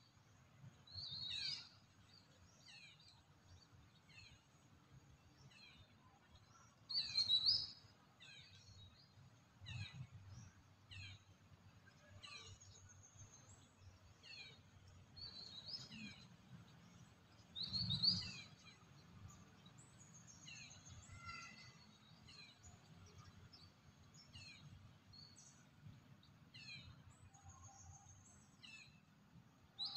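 Birds chirping in woodland: short, high, downward-sliding chirps repeated about once a second, with a few louder calls about a second in, near seven seconds and near eighteen seconds.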